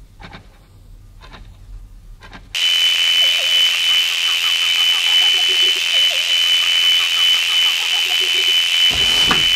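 Radio static: a loud hiss with a steady high whine switches on suddenly about two and a half seconds in, with faint warbling tones drifting through it, and a low rumble joins near the end. Before it, only faint ticks about once a second.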